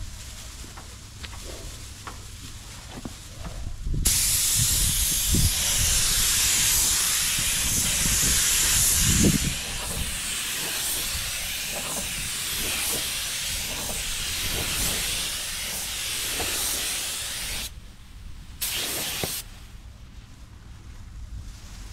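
Compressed-air paint spray gun laying a second coat of clear lacquer: a steady hiss that starts abruptly about four seconds in and runs for roughly fourteen seconds, easing slightly partway through, then one short extra burst about a second after it stops.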